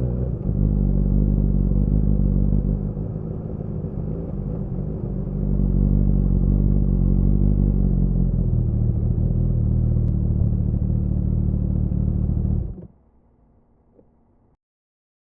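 Kawasaki ZX-10R's inline-four engine and exhaust running at low revs, rising and easing off a little as the bike moves slowly. It cuts off abruptly near the end.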